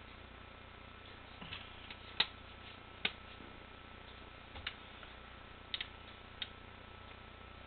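A handful of short, irregular clicks over a steady background hiss, the sharpest a little after two seconds in.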